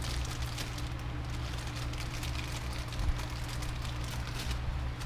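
Light, irregular clicking and ticking of parts being handled during assembly of heim-joint suspension arms, over a steady low hum.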